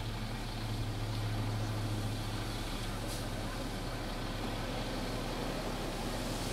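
Snowplow dump truck's engine running, a low drone that eases off after about two and a half seconds, over a steady hiss.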